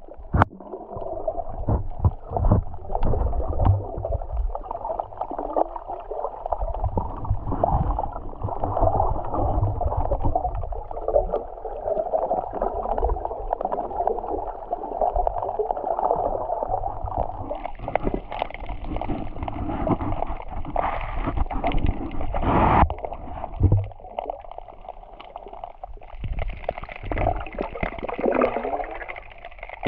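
Muffled sea water heard underwater, gurgling and sloshing steadily, with a few sharp knocks, one of the loudest near the end.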